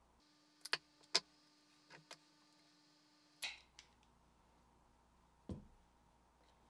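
A few light, sharp clicks and taps, a louder click about three and a half seconds in and a duller knock near five and a half seconds, over a faint steady hum that stops partway through.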